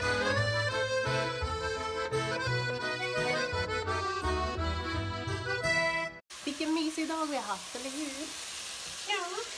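Upbeat background music with a steady pulsing bass line, cut off abruptly about six seconds in. After it, a steady sizzling hiss of fish frying in oil, with a few short sliding vocal sounds.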